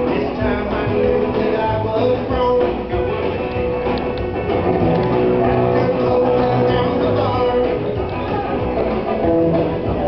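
Live band playing during a sound check, guitars to the fore, heard through the PA across a large hall.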